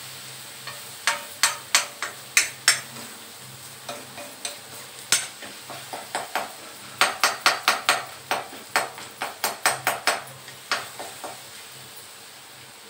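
Steel spoon scraping and knocking against a steel kadhai in quick clusters as garlic paste is stir-fried in oil, with a low sizzle beneath. The garlic is being fried until it reddens and loses its bitterness. The knocking is thickest in the second half and stops shortly before the end.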